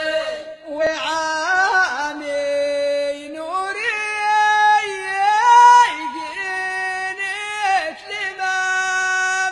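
A single voice singing long, held notes that slide and bend between pitches, in phrases of a few seconds each: an Amazigh ahwash-style sung poem.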